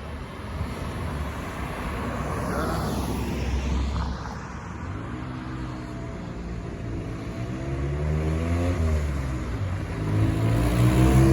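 Cars passing by on a road: one goes past about four seconds in, and another with a low engine hum comes up louder near the end.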